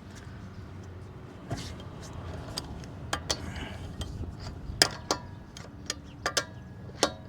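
Hand wrench with a socket and extension clinking on the wheel's lug nuts as they are snugged down. About nine irregular sharp metallic clicks, a few ringing briefly.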